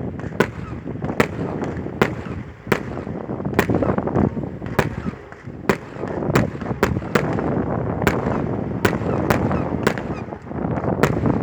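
Fireworks going off: a string of sharp bangs and cracks at irregular intervals, roughly two a second, over a constant noisy background.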